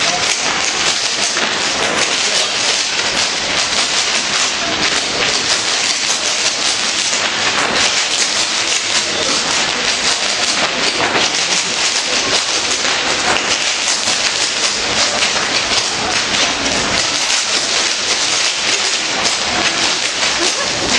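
Many Irish dancers' hard shoes clattering on a stone floor in unison, a dense, continuous rattle of fast heel and toe strikes.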